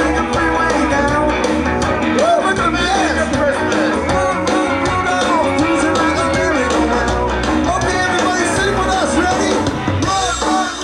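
Live band playing a rock-and-roll song, a singer's voice carrying the melody over a steady bass line.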